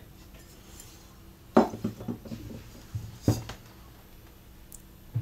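A few sharp metallic knocks and clunks as the cut-out door panel and the empty steel camping-gas bottle are handled and set down on a wooden table, the loudest about a second and a half in and again a little over three seconds in.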